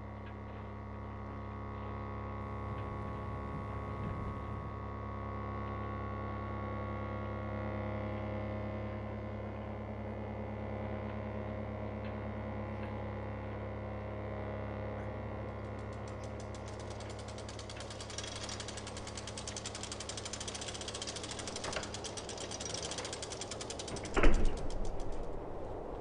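Ambient sound-design drone: a steady low hum layered with sustained tones. About two-thirds of the way in, a fast mechanical rattle joins, and a single loud thump comes near the end.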